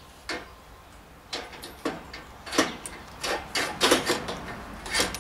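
A long metal pole knocking and clanking, about eight sharp irregular knocks, the loudest around four seconds in, as it is handled upright on a ladder.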